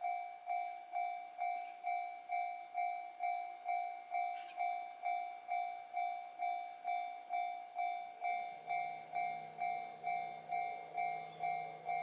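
Japanese level crossing electronic warning bell ringing, a repeating two-note 'kan-kan' strike at about two strikes a second, signalling that a train is approaching. From about eight seconds in a low steady hum joins underneath.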